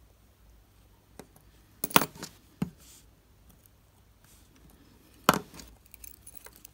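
A few sharp clicks and taps of metal watchmaker's tweezers against a small digital watch module and the bench, the loudest about two seconds in and another about five seconds in.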